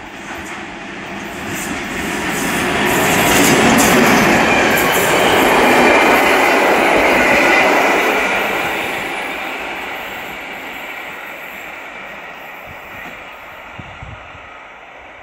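A passenger train hauled by a class 441 electric locomotive passing close by. The noise of its wheels on the rails swells to a peak in the middle, then fades as the coaches move away.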